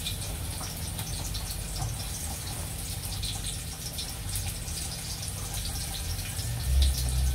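Black-eyed peas frying in oil in a pot on the stove: a steady scatter of fine sizzling crackles over a low constant rumble, with a louder low bump near the end.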